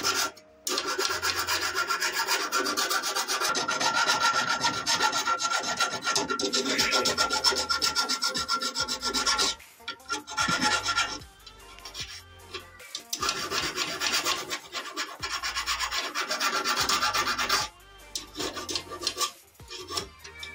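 A small hand file scraping rapidly back and forth across a deep freezer's copper refrigerant tubing to score and cut it. There are two long runs of fast strokes, with a pause of a few seconds a little before halfway.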